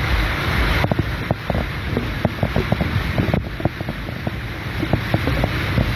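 Hurricane wind and heavy rain heard from a car driving through a flooded street: a steady rushing noise with wind rumbling on the microphone, and many quick irregular taps as raindrops strike close by.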